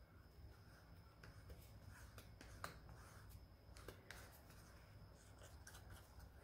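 Faint, irregular scraping and light clicks of a stir stick against a plastic mixing cup as liquid resin is stirred, over a low steady room hum.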